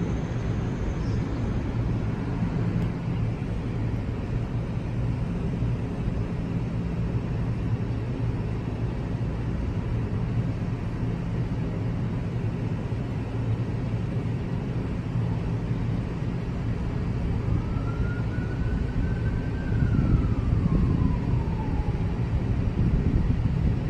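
A train of NJ Transit double-deck multilevel coaches rolling past close by, with a steady low rumble of wheels on rail. About three-quarters of the way through, a high squeal slowly rises and then falls, and the rumble grows louder near the end.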